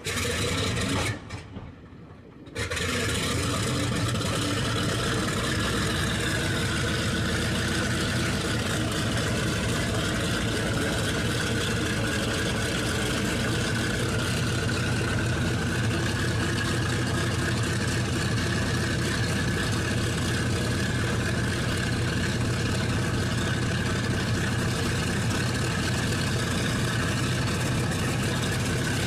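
Engine running steadily, a deep even drone with a higher whine above it. It is loud for about the first second, dips, then comes back in at about two and a half seconds and holds level.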